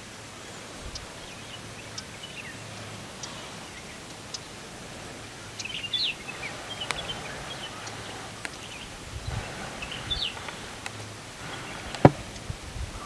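Outdoor ambience: small birds give short, scattered high chirps over a steady background hiss, with a few faint clicks and low thumps. One sharp snap sounds about twelve seconds in.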